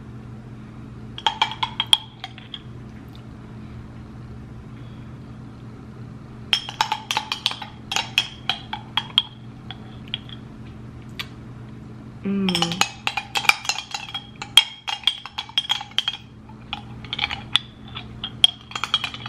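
A spoon clinking and scraping against a jar while scooping out sea moss gel, in four bursts of quick ringing clinks. A short hum from a voice comes about twelve seconds in.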